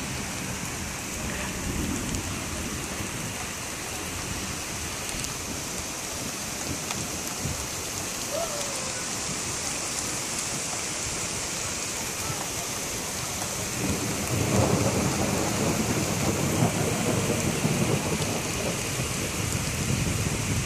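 Steady rain falling, with a long rumble of thunder swelling up about two-thirds of the way through and carrying on to the end.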